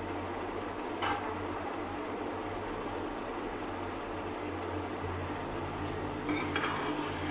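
A pot of egg curry cooking on the stove under a steady hum, with a single utensil clink about a second in and a spoon scraping against the pot near the end.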